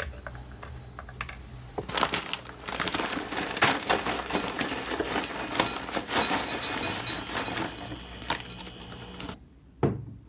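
Popcorn being poured from a bag into a glass bowl: a dense crackle and patter of popped kernels with crinkling of the bag, lasting several seconds, then one sharp knock near the end. Before the pour, a low hum with a few light clicks.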